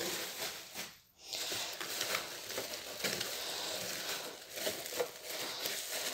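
Plastic bubble wrap crinkling and rustling with small crackles as a wrapped mug is pulled from a cardboard box and unwrapped. The rustle drops out briefly about a second in.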